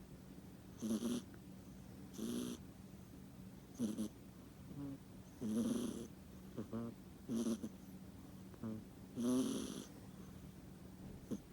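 A pet cat snoring in a steady rhythm, about one snore a second. Some breaths carry a hissy whistle, others a fluttering rattle.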